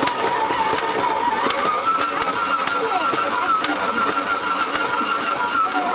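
Electric stand mixer running, its dough hook kneading soft yeast dough in a steel bowl: a steady motor whine that rises a little in pitch about a second and a half in, with scattered clicks and knocks.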